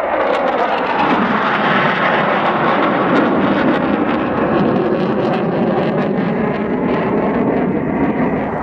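Saab Gripen fighter jets flying past, their single jet engines giving a loud, steady rushing noise with a crackling edge.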